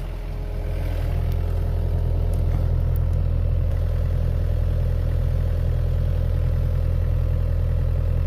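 Hitachi EX60 excavator's diesel engine running steadily, getting a little louder about a second in and then holding.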